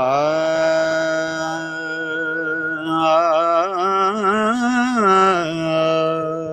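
A man's voice singing long held notes, with a wavering, ornamented run of rising and falling pitch in the middle before settling back on the held note.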